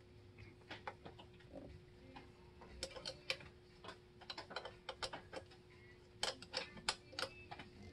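Light, irregular clicks and taps of metal throttle linkage parts being handled on a Holley Sniper EFI throttle body, coming in clusters about three seconds in and again near the end, over a faint steady hum.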